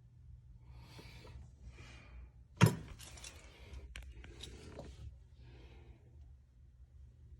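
Handling noises, rustling and light clatter, with one sharp knock about two and a half seconds in, over a steady low hum.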